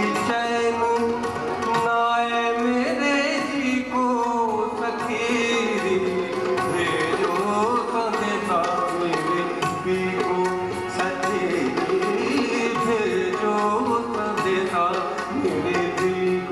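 Harmonium playing a melody over a tabla rhythm: an instrumental passage between sung lines.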